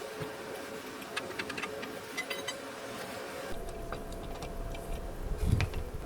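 Small metallic ticks and clicks of hand tools and lug nuts being worked during a wheel change, followed by a low rumble and a dull thud about five and a half seconds in.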